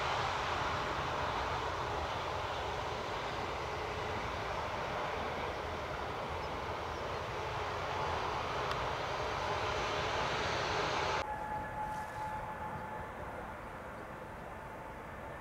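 Airbus A350's Rolls-Royce Trent XWB jet engines running as the airliner rolls along the runway: a steady jet rush with a faint whine. About eleven seconds in it cuts off abruptly to fainter, distant jet noise with a thin steady whine.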